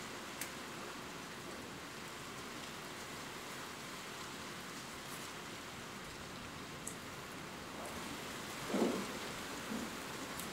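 Steady rain ambience with a few sparse drop ticks. A brief, louder swell comes near the end.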